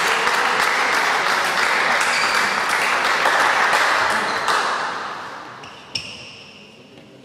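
Spectators clapping after a rally ends, dense and steady, dying away over the last couple of seconds. Near the end, a single click with a short, high ringing ping.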